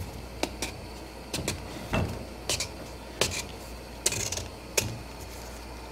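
Vegetable peeler scraping strips of rind off a breadfruit: about nine short scrapes at an uneven pace.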